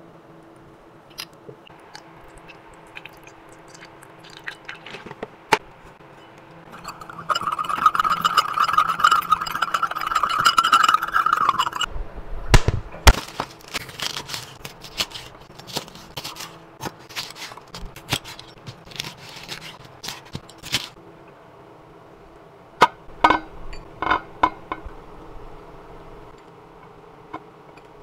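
A large kitchen knife chopping bok choy on a cutting board, a run of sharp knocks and crunches about halfway through, with a few more knocks near the end. Just before the chopping there are about five seconds of steady rushing noise with a tone in it, and light clinks are scattered throughout.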